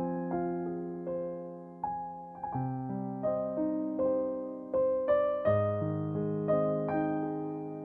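Background music: slow, gentle piano playing held chords with single notes struck over them, a new note or chord about every half second to a second.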